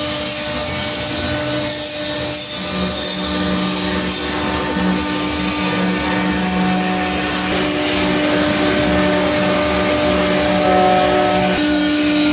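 CNC router spindle running with a steady whine while its V-bit engraves into an MDF board, with an even cutting hiss throughout.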